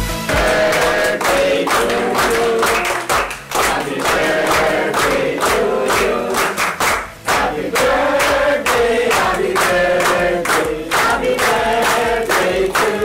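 A group of people singing together, with hands clapping along steadily.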